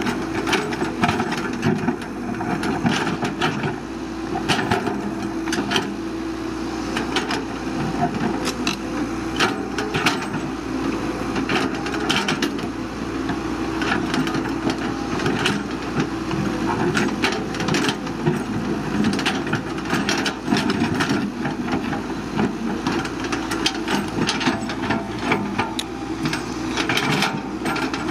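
Caterpillar 312BL hydraulic excavator's diesel engine running steadily under load, with frequent sharp cracks, knocks and scrapes as the bucket digs through soil, rock and brush.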